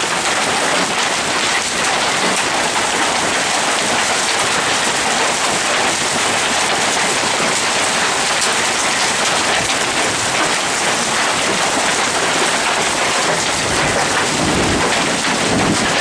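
Hail pelting down in a dense, steady hiss of impacts, with a low rumble near the end.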